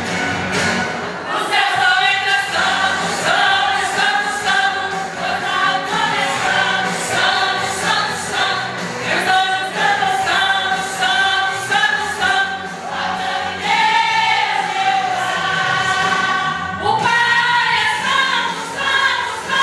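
A gospel vocal group singing a hymn in harmony over musical accompaniment with a steady beat.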